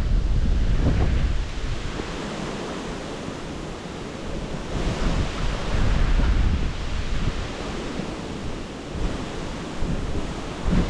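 Wind buffeting the microphone in gusts: a rumbling rush that swells at the start and again around the middle and eases off in between.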